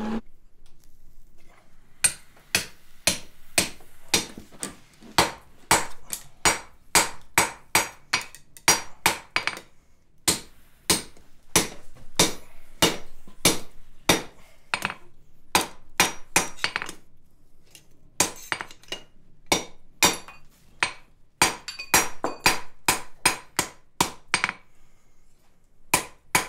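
Blacksmith's hand hammer striking a steel drift down through a punched slot in a red-hot bar on the anvil, opening the hole out. Ringing blows about two a second, starting about two seconds in and coming in runs broken by short pauses.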